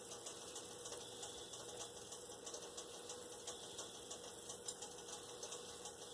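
Faint steady hum under light, scattered clicks and ticks from a loose cheese cutter being handled and adjusted.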